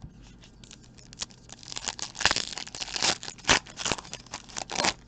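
Trading-card pack wrapper being torn open and crinkled by hand: an irregular run of crackling rustles that gets louder after about two seconds and stops near the end.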